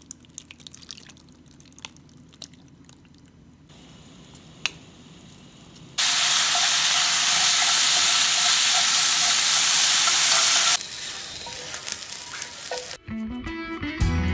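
Cubes of beef sizzling loudly in a hot oiled frying pan for about five seconds, after a stretch of quiet handling and a few clicks; the sizzle then drops off, and guitar music comes in near the end.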